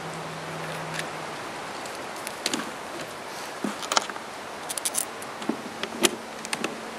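Small metal screws and washers clicking and clinking against a plastic feed trough as they are picked up and handled: a dozen or so short, sharp clicks over a steady background hiss.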